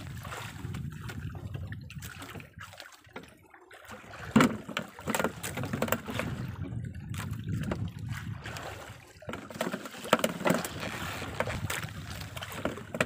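Wind on the microphone and sea water sloshing against a small outrigger fishing boat, with a few sharp knocks, the loudest about four seconds in.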